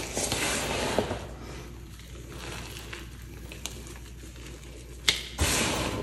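Hands crushing and pressing crumbled, dried pasted chalk, a crisp powdery crunch. One long crunch comes in the first second, and a second one near the end follows a sharp click, with faint crackling between.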